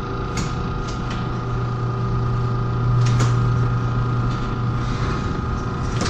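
Chamberlain Whisper Drive garage door opener running as the door moves: a steady motor hum with a few clicks and rattles from the door.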